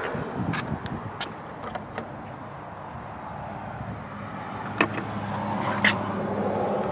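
Steady outdoor background noise with a low engine-like hum that grows louder over the last few seconds, and scattered sharp clicks, two loud ones near the end.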